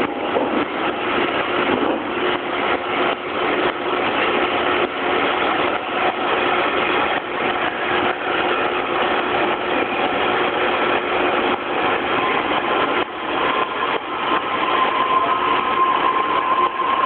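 Freight wagons loaded with containers and tank containers rolling past, their wheels knocking on the rails in an uneven run over a steady rumble. A thin steady tone joins in near the end.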